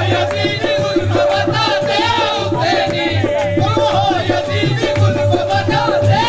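Qawwali music: a dholak drum beat with a keyboard melody, in an instrumental passage between sung lines.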